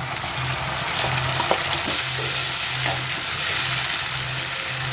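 Chopped tomatoes and onions sizzling in hot oil in a pan, a steady hiss while being stirred. A low hum pulses on and off underneath.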